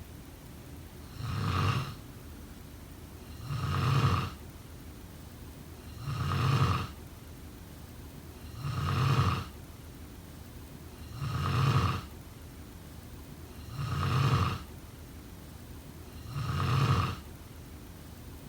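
A sleeping person snoring: seven loud snores at an even rhythm, about two and a half seconds apart, each lasting about a second.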